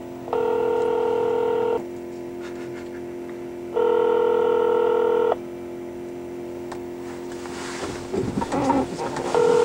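Telephone ringing tone heard over a cell phone as the call rings out: a steady electronic tone, about a second and a half on and two seconds off, sounding three times, the last near the end.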